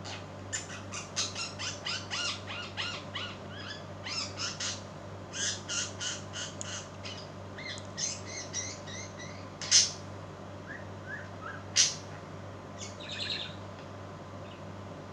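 Pet birds chirping in quick runs of short notes, about three or four a second, with two loud sharp calls and a brief chattering burst later on, over a steady low hum.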